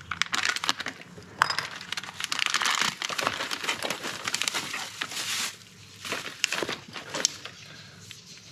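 Clear plastic parts bags crinkling and crackling as they are handled and pushed into a cardboard box, dense for the first five seconds or so, then a few scattered crackles.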